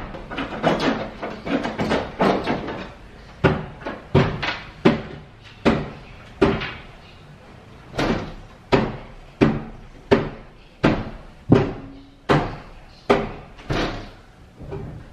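A run of heavy knocks, each ringing briefly in the room, settling into a steady beat of about three every two seconds in the second half.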